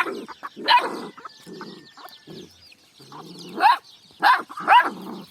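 Chickens clucking in a string of short, loud, upward-sliding calls, over faint high cheeping from chicks.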